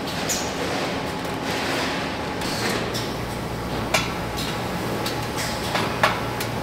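Steady factory machinery noise, with sharp metal clanks about four and six seconds in as metal trays of snack bars are slid onto a steel rack.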